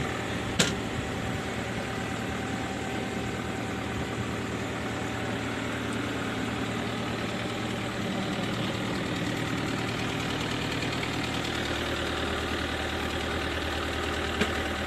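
Mini excavator's diesel engine idling steadily, freshly restarted after an engine oil and oil filter change and left running so the new oil circulates. A single sharp click about half a second in.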